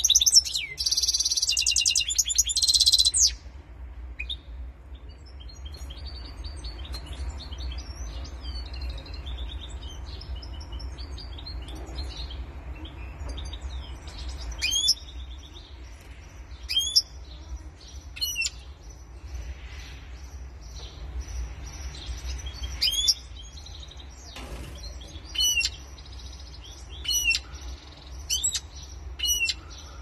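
Goldfinch × canary hybrid (mule) singing: a loud burst of rapid twittering song for about the first three seconds, then softer twittering, then short sharp call notes every second or two from about halfway through. A low steady rumble runs underneath.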